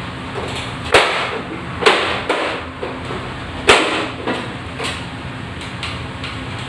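Sharp clacks and knocks from a ceiling tube-light fixture being pushed and fitted by hand. There are three loud knocks about a second apart, then a couple of softer taps, over a steady low hum.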